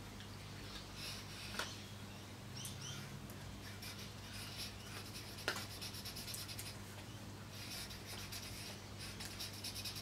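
Black felt-tip marker drawing on a paper sketchpad: short scratchy strokes that come and go, with a couple of light ticks, over a low steady hum.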